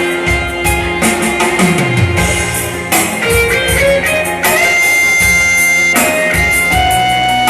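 Korg Pa1X arranger keyboard playing an improvised melody over its drum and bass accompaniment, with long held notes in the upper line.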